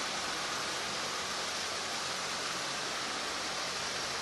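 Steady, even rushing noise with a faint low hum underneath and no distinct events.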